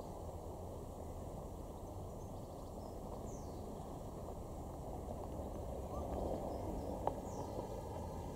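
Outdoor ambience: a steady low rumble with a few faint high bird chirps, and one brief click about seven seconds in.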